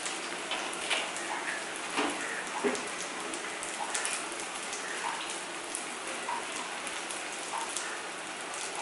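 Egg and onion omelette mixture frying in oil in a non-stick pan, a steady sizzle with many small pops and crackles; a few louder clicks come in the first three seconds.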